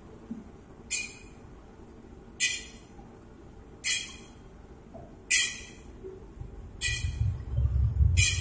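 A long metal skimmer clinks against the aluminium wok about every second and a half, six times, over the steady sizzle of battered tofu deep-frying in hot oil. A low rumble comes in near the end.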